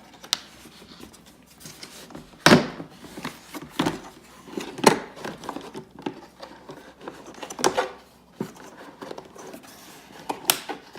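Plastic tool set case being handled, its side latches clicking. There are scattered clicks and knocks, and a few louder snaps spaced a second or more apart.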